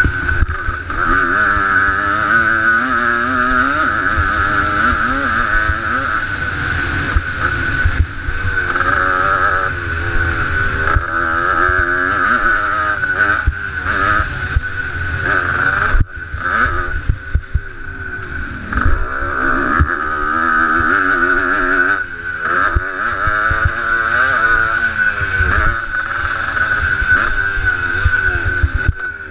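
Motocross dirt bike engine revving hard and easing off as it is ridden around the track, heard from the bike with low wind rumble on the camera microphone. About halfway through the throttle briefly shuts off, and the engine then picks up again.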